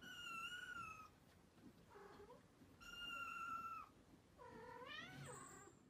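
Kittens mewing: four high, thin mews. Two are long and level, a short one falls between them, and the last slides up and then down.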